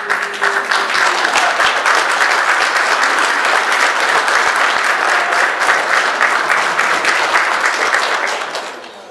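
Church congregation applauding the bride and groom's kiss at the end of the wedding vows. The clapping starts at once, holds steady, and dies away near the end.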